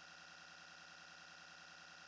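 Near silence: a faint, steady hiss with a thin high tone, and no plain sound of the rotor or engine.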